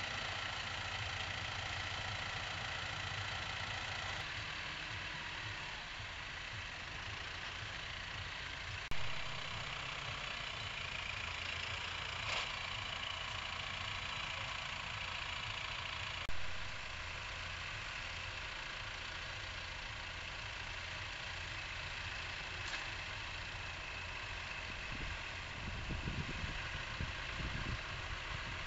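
Diesel farm tractors running steadily while pulling mounted reversible mouldboard ploughs, a constant low engine drone. Two sharp clicks come about 9 and 16 seconds in.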